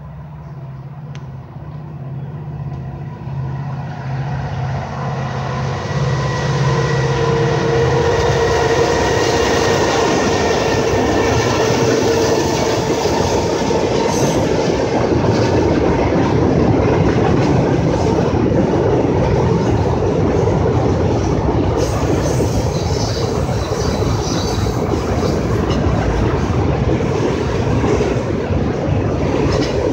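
CN freight train led by an EMD SD70M-2 diesel-electric locomotive, its two-stroke V16 diesel growing louder over the first several seconds as it approaches. The locomotive passes, and the rest is the steady loud rolling noise of the freight and tank cars' wheels on the rails.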